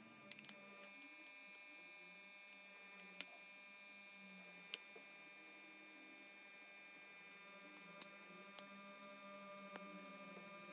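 Near silence: a faint steady hum with about six short, sharp light clicks scattered through it.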